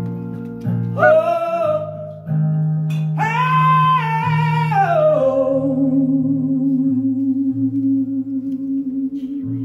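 Live male vocal with acoustic guitar: a short wordless cry about a second in, then a long high note from about three seconds that slides down and is held low with vibrato to the end, over the guitar.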